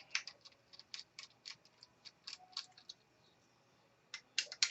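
Screwdriver working small screws in a laptop: quick, irregular light clicks and ticks, a few a second, stopping for about a second near the end and then bunching up again.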